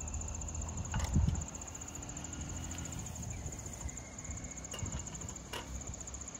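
Steady high insect trilling, with knocks and clicks as a roll-up slatted camp table top is picked up and laid onto a folding table frame; the loudest knock comes about a second in.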